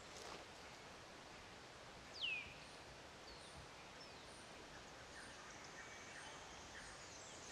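Quiet outdoor ambience with a faint steady hiss, and a bird calling: one clear falling whistle about two seconds in, then two fainter, shorter falling chirps.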